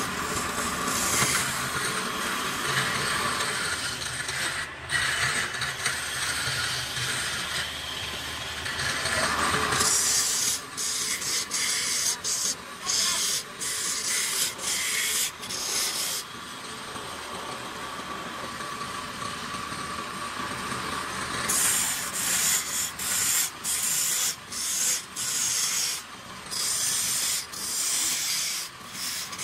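Hand-held turning tool scraping into a spinning wooden blank on a lathe, a rough hiss of shavings being cut. For the first ten seconds or so the cut runs continuously; after that it comes in short strokes with brief breaks as the tool goes on and off the wood.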